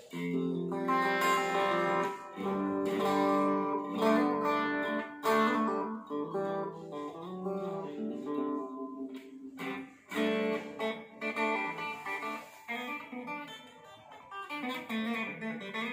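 Japanese-made Ibanez RG570 electric guitar played through a small combo amp: a run of picked single notes and chords, with sharp attacks and short pauses between phrases.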